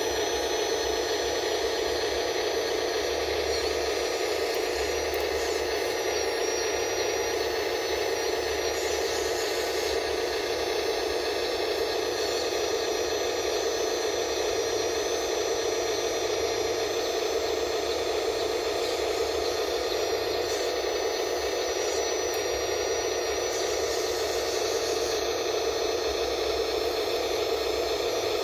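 Steady whirring hiss of an RC hydraulic excavator's electric pump running continuously, with no breaks or distinct knocks.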